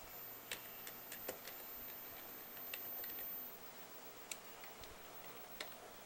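Faint, irregular clicks of computer keyboard keys as a short search phrase is typed, about ten clicks spread over a few seconds.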